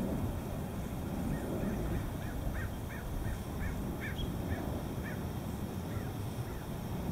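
A bird calling in a run of short, repeated calls, about two a second, starting about a second in and thinning out after the middle, over a steady low rumble.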